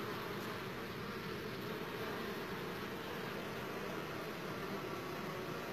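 Honeybees buzzing steadily around the hive entrance, the hum of a colony with foragers flying in and out.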